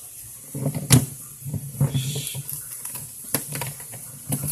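Knocks and clatter of a chunk of freezer ice being handled and worked loose during defrosting, with a sharp knock about a second in and another a little after three seconds.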